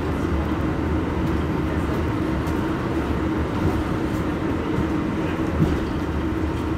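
Irizar ie tram electric bus standing at a stop, giving off a steady hum with a low rumble underneath.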